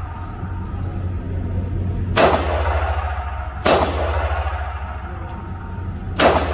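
Taurus G3c 9mm pistol fired three times in an indoor range: sharp shots about 2 s in, a second and a half later, and again about two and a half seconds after that. Each shot is followed by an echoing tail off the range walls. A steady low hum runs underneath.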